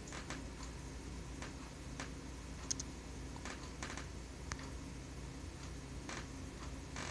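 Faint, scattered light clicks at irregular intervals over a low steady hum.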